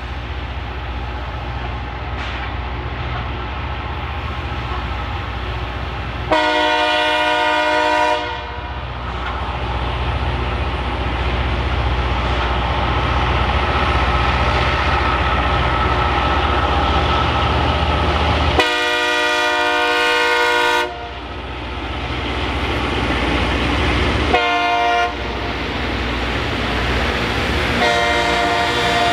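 A train's multi-tone air horn sounds the grade-crossing signal: two long blasts, a short one, then a long one starting near the end, the standard warning for a train approaching a road crossing. Between the blasts a locomotive's diesel engines rumble steadily.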